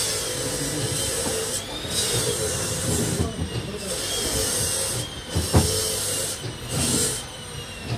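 Repeated bursts of hissing, five in all, each about a second long, with a sharp knock about five and a half seconds in.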